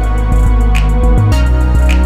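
Background music with a heavy bass line and a steady beat, a sharp hit about once a second.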